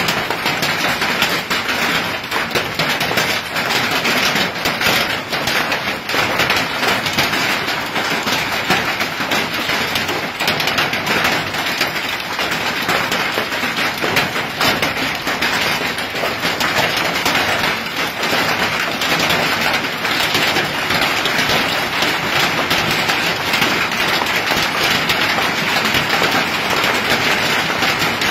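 Hailstorm: hailstones and rain pelting down, a loud, dense, steady clatter of countless small impacts.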